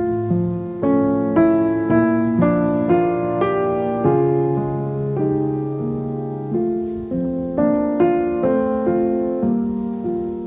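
Background piano music: slow, gentle notes, about two a second, each ringing and fading.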